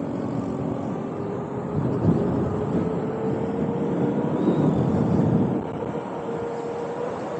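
City street traffic and road noise heard while riding an electric unicycle, with a faint whine that rises slowly in pitch through most of it.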